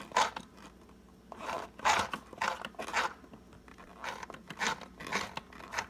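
A cheap plastic sewing machine being worked by hand while threading it: a series of short, irregular scraping and rasping strokes from its mechanism and thread.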